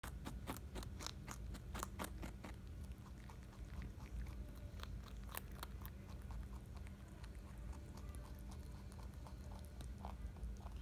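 A rabbit chewing a piece of carrot close up, with quick crisp crunches during the first two seconds or so, then slower, softer chewing and one sharper crunch about halfway through.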